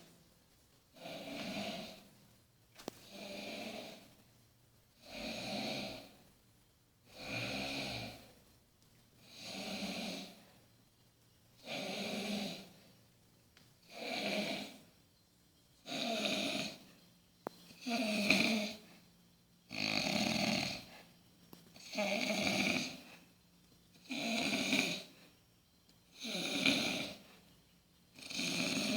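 A sleeping man snoring loudly in a steady rhythm: one long, rasping snore about every two seconds, each lasting about a second, with quiet breaths between.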